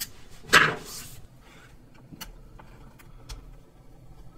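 A small screwdriver working the screws of a laptop's bottom panel, making a few light clicks and scrapes. There is a louder, brief handling sound about half a second in.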